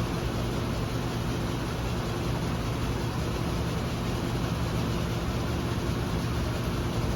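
A steady low mechanical hum under an even hiss, holding unchanged throughout.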